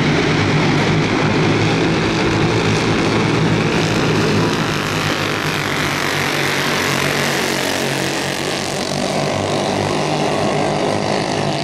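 Racing go-kart engines running hard together as the karts lap the track, a steady engine drone whose pitch shifts as they go round.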